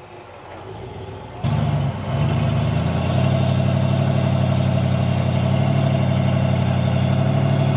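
Off-road rock-crawler engine idling steadily close by. It comes in abruptly about a second and a half in, after a quieter stretch.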